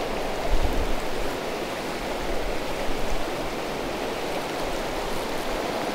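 Fast, shallow river rapids rushing over rocks: a steady, even rush of moving water.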